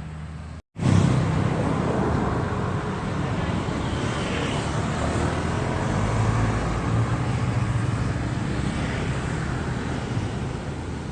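Kubota U50 excavator's diesel engine running under working load, a steady low drone with clattering noise over it. It starts abruptly after a brief dropout less than a second in.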